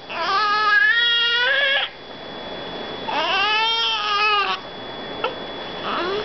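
A two-day-old newborn baby crying: two long wails, each about a second and a half, with a short pause between them.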